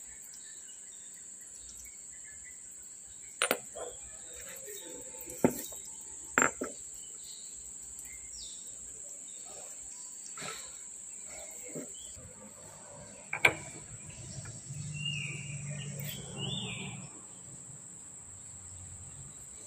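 A handful of sharp metal clinks as steel gear-coupling parts are handled and knocked together, over a steady high-pitched hum.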